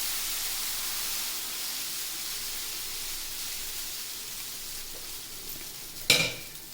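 Dosa batter sizzling on a hot oiled tawa, a steady hiss that slowly dies down as the batter sets. A sharp clank about six seconds in is the loudest sound.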